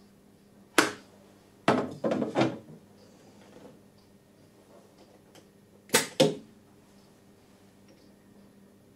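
Hard clacks and knocks as a polishing disc is laid onto the metallographic grinder/polisher's magnetic turntable and the sample holder is fitted under the head: one sharp clack about a second in, a short rattling run of knocks around two seconds, and two quick knocks near six seconds.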